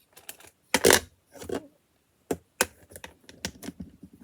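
Plastic LEGO pieces being handled and pressed together: irregular sharp clicks, with a louder rustling clatter just before a second in.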